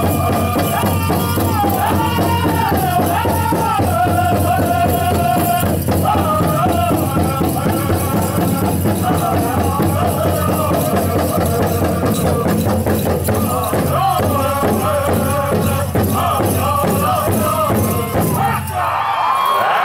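Pow-wow drum group singing a fancy dance song over a steady, driving beat on a big drum, with the dancers' ankle bells jingling. The song stops near the end.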